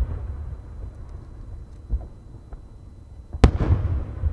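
Aerial firework shells bursting overhead. A small crack comes about two seconds in, then a loud boom about three and a half seconds in, followed by a low rolling rumble.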